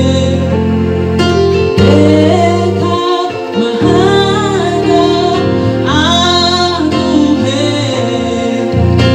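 Kinyarwanda gospel song: a woman sings long phrases with vibrato into a microphone over instrumental backing with held bass notes.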